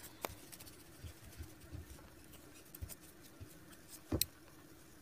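Small clicks and taps of a small screwdriver being worked through a hole in a tape-wrapped craft stick, with a louder knock about four seconds in.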